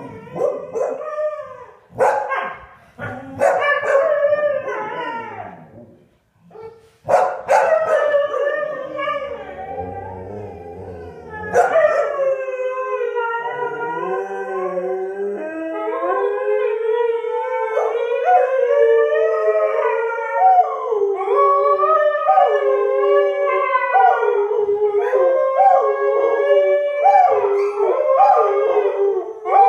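A Siberian husky and two English springer spaniels howling together. The first seconds are broken yips and short howls with a brief lull about six seconds in; from about twelve seconds on the dogs keep up a continuous chorus of several overlapping, wavering howls.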